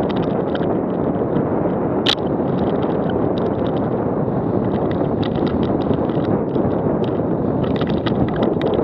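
Wind rushing over a helmet-mounted camera on a fast downhill mountain-bike descent, with the Canyon DHX downhill bike's tyres crunching over dirt and stones and a steady clatter of small rattles from the bike. There is one sharp clack about two seconds in.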